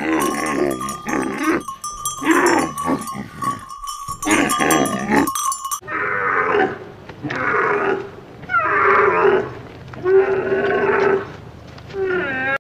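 Camels calling: a series of drawn-out pitched calls, each about half a second to a second long. In the first half a steady ringing tone and chiming run under them. About halfway through the sound changes abruptly to clearer, separate calls.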